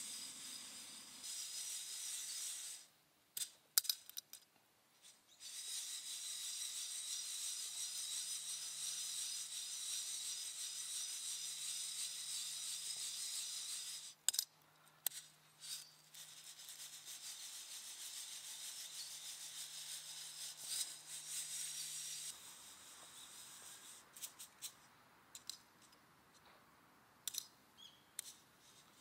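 Coffee beans tumbling in a hand-shaken wire-mesh roaster over campfire embers: a steady dry rattling hiss in three long spells. Each spell stops suddenly, and the short pauses between them hold a few sharp clicks and taps.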